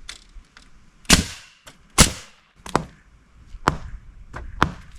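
Hammer blows, roughly one a second, six in all, the loudest two about a second and two seconds in.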